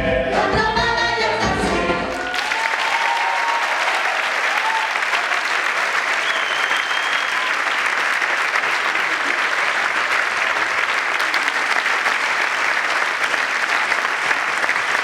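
A choir singing to music ends about two seconds in, and an audience then applauds steadily.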